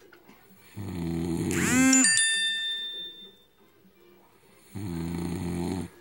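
A man snoring loudly in deep sleep: two heavy, rattling snores, one about a second in and another near the end. The first snore ends in a brief sliding tone and a short high ringing note.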